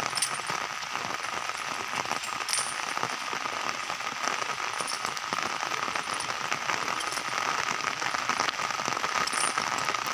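Steady rain falling: an even hiss thick with the fine ticks of drops, with a faint steady thin tone beneath it.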